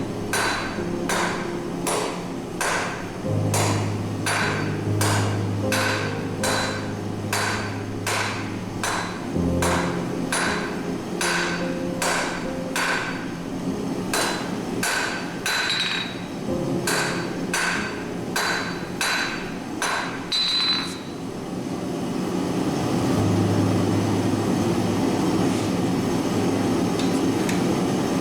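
Hand hammer striking hot steel on an anvil in a steady rhythm, about two blows a second, some with a bright ring; the hammering stops about three quarters of the way through. Background music plays underneath.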